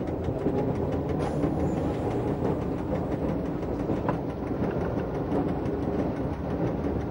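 Berner Oberland-Bahn electric train running steadily along the track: a continuous rumble with a stream of light clicks from the wheels on the rails.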